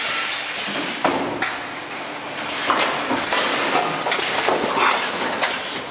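Thermoform fill seal packaging machine running, its pneumatically driven stations cycling with repeated metallic clunks, roughly one a second, each followed by a hiss of air.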